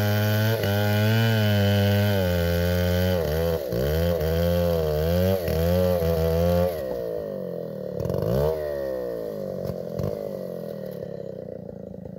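Stihl 070 two-stroke chainsaw engine running hard, its speed rising and falling several times. About seven seconds in it drops to a lower, quieter running speed and keeps fading.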